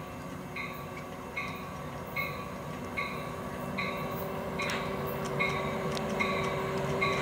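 Amtrak San Joaquin passenger train approaching, its low rumble growing steadily louder. A bell rings at an even pace, about once every 0.8 seconds.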